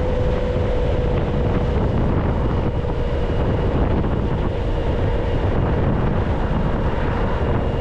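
Wind rushing over the microphone while riding a Zero SR/S electric motorcycle at speed, with a steady whine from its electric drivetrain and no engine sound.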